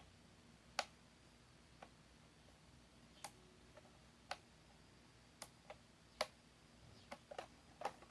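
About a dozen sharp, irregularly spaced clicks and light taps of small hard parts being handled, as in working on a small appliance by hand. The loudest come about a second in and about six seconds in, with a quick cluster near the end.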